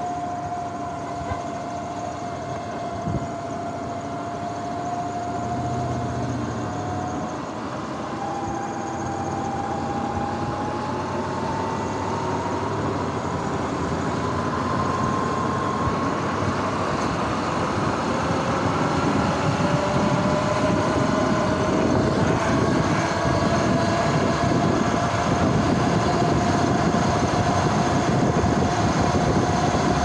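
Sur-Ron X electric dirt bike under way: the electric motor and belt drive whining, the pitch sagging a little and then rising twice as it speeds up, over wind and tyre noise that grows louder in the second half.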